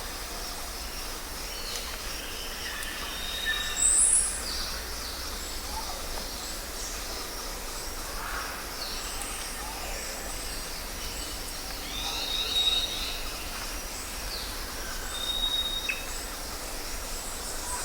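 Jungle ambience: scattered bird calls over a steady background hiss and low rumble, with short high whistled notes repeating every few seconds and a loud shrill call about four seconds in.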